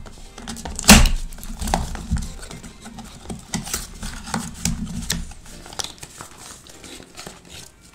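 Cardboard perfume box handled and opened by hand close to a microphone: rustling, scraping and small taps of the card, with a sharp knock about a second in, growing sparser toward the end.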